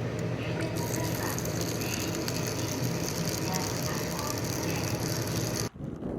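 Bicycle on the move, its freewheel hub ticking rapidly over steady wind and road rumble. The sound cuts off abruptly near the end.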